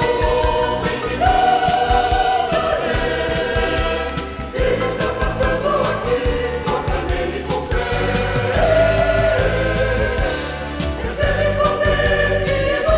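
A choir and orchestra performing a gospel song: many voices holding sung chords that change every second or two over a steady accompaniment and beat.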